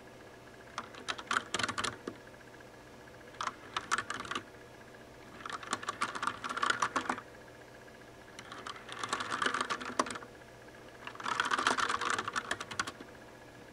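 Das Keyboard mechanical keyboard with Cherry MX Brown switches, keys typed and tapped in five short, rapid flurries with brief pauses between them.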